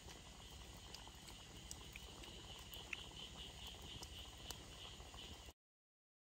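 Faint insects chirping, a steady high band that pulses rhythmically in its middle stretch, with a few light clicks. The sound cuts off suddenly to complete silence about five and a half seconds in.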